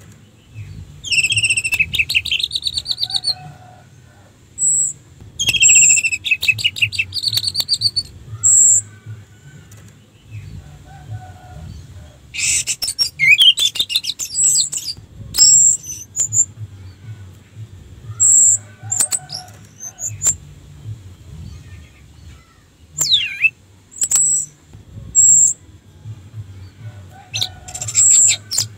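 Orange-headed thrush singing in a string of varied phrases: short high whistles mixed with rapid twittering trills, with brief pauses between phrases.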